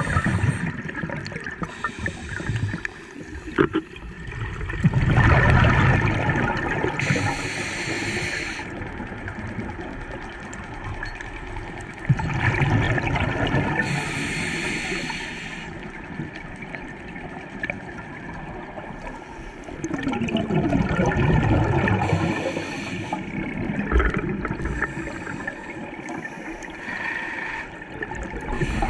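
Scuba diver breathing through a regulator underwater: a surge of exhaled bubbles gurgling about every seven to eight seconds, each followed by a short hiss.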